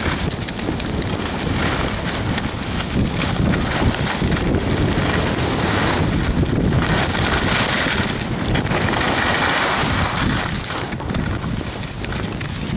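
Wind rushing over the microphone during a downhill ski run, with the hiss of skis sliding over snow that swells and fades.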